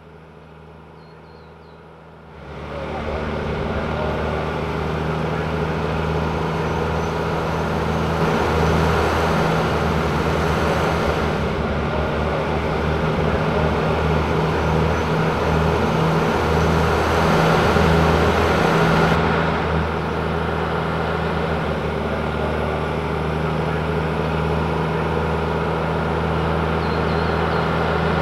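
Open-air shuttle tram's engine running steadily under way, with road noise. It starts abruptly about two seconds in as a loud, low, steady drone.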